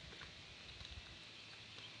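Faint, sparse taps of peahens' beaks pecking grain off paved stone, over a low steady hiss.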